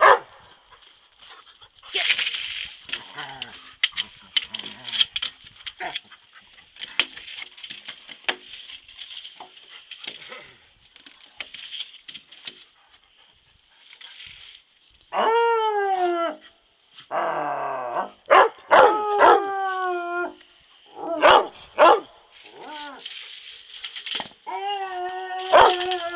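Dog barking: about halfway in, several long barks that each fall in pitch start coming in bunches, with more near the end. Before that there are only scattered light clicks and rustles.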